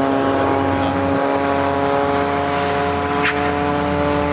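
Propeller aircraft engine droning at a steady, unchanging pitch, with a brief hiss about three seconds in.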